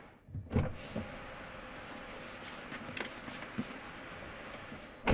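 Car door, heard from inside the cabin: a clunk as it is opened about half a second in, then a loud slam as it is shut at the end.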